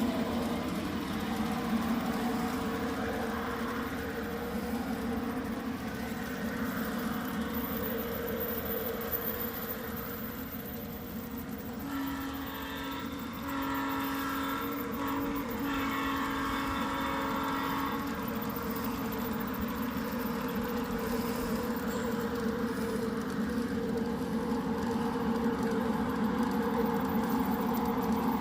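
G scale model freight train running steadily on garden railroad track. About halfway through, a horn sounds in four blasts over some six seconds, the last one the longest.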